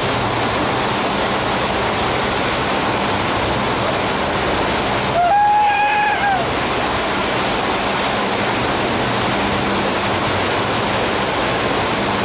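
Strong wind and rough, breaking sea making a steady loud roar. About five seconds in, a person's voice cries out once, held for about a second.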